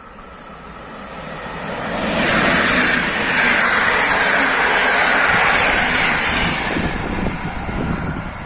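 PKP Intercity EP07 electric locomotive hauling a train of passenger coaches past at speed. The noise of the wheels on the rails swells, is loud for about five seconds as the coaches go by, then fades as the train draws away.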